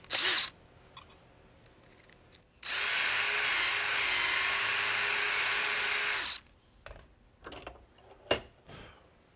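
Power drill running steadily for about three and a half seconds, enlarging a hole in a small wooden spacer block, its motor holding one pitch throughout. Brief handling noise before it and a few clicks after, one sharp.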